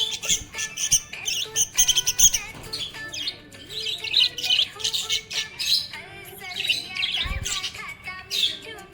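Budgerigars chirping and warbling in rapid, continuous chatter.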